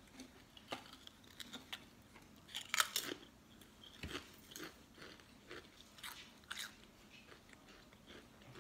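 A person biting and chewing a Pringles potato crisp: sharp crunches, loudest in a cluster about three seconds in, then softer chewing crunches that fade out.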